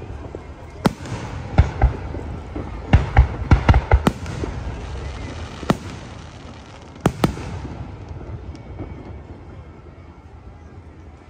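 Aerial fireworks bursting: about a dozen sharp bangs, some in quick runs of two or three, coming thick in the first seven seconds and then thinning out so the last few seconds are quieter.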